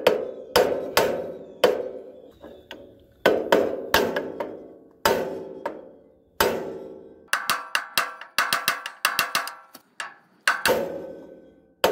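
Hammer blows on a steel punch set on a garden tractor's seized front steering spindle, driving it out of the axle. Each blow rings with a metallic note and dies away. The heavy blows come about one every half second to second and a half, with a fast run of lighter taps about two-thirds of the way through, then two more heavy blows.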